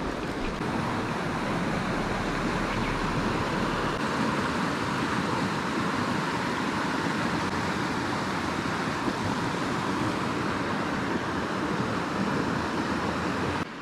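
Mountain stream water rushing over rocks, a steady rush that cuts off suddenly near the end.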